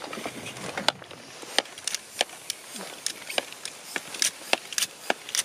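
A tubeless mountain bike tyre being inflated on its rim without sealant: sharp, irregular clicks and ticks, a few a second, over a low hiss.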